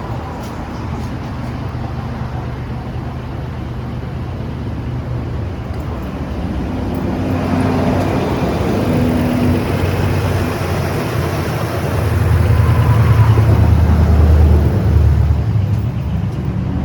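Jeep 3.7-litre V6 engine running, with steady low engine tones that grow louder about halfway through and louder still for a few seconds near the end. The engine is one that the owner says keeps fouling its spark plugs.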